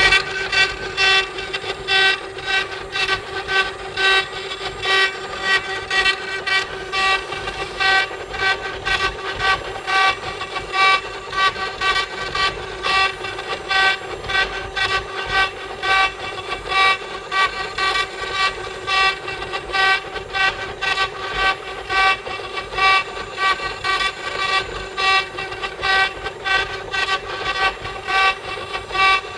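CNC wood-carving machine running, its motors giving a steady high whine with many overtones that pulses about once a second as the machine moves.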